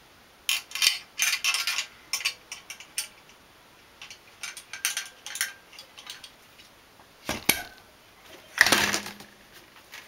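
Metal and plastic installation parts for a window air conditioner clinking and clattering as they are handled, in several bursts of sharp clicks. There is a heavier knock about seven seconds in, and the loudest clatter near the end as a metal mounting bracket is set down on a cardboard box.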